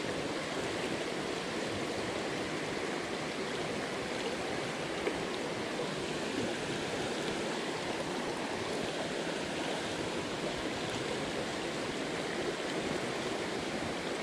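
Jungle headwater stream flowing steadily: a continuous, even rush of running water.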